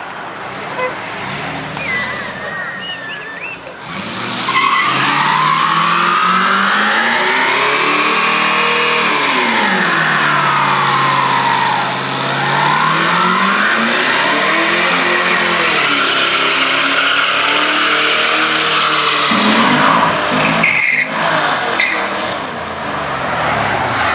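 A car doing a burnout: its engine held at high revs while the tyres squeal and spin on the road. The revs sag about halfway and climb again, and the sound changes near the end.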